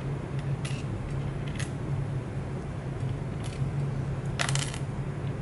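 Small metal nuts and washers clicking and clattering as they are fitted by hand: a few sparse light clicks, then a louder short cluster about four and a half seconds in, over a steady low hum.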